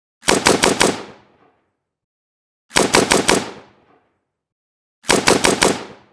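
AK-47 assault rifle (7.62×39mm) firing on full auto in three short bursts of four rounds each, about two and a half seconds apart. Each burst trails off in a brief reverberant tail.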